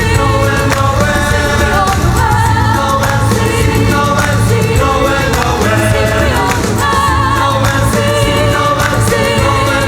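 Music: a song with singing voices over a steady bass and beat.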